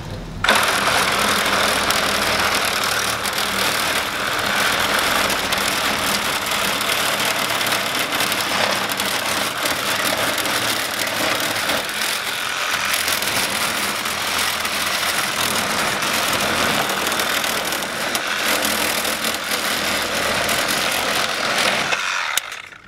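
Cordless reciprocating saw cutting through the end of an AC condenser coil's copper tubing and aluminium fins. It cuts in one long, steady run that starts about half a second in and stops shortly before the end.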